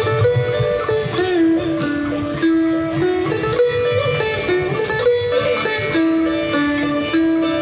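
Sitar played live with tabla: a plucked melody line whose notes bend and slide between pitches, over tabla drum strokes.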